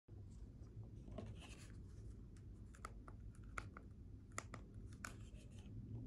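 Faint room tone with a low steady hum, broken by a handful of small clicks and light rustles.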